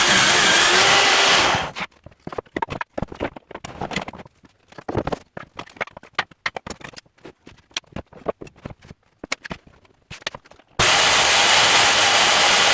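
A power tool running loudly, stopping about two seconds in. Then come scattered knocks and clicks of handling, and the tool starts up again near the end.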